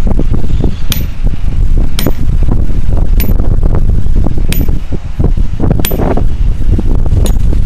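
Hammer striking metal: about seven sharp blows, each with a brief metallic ring, spaced a second or a little more apart. Heavy wind rumble on the microphone runs underneath.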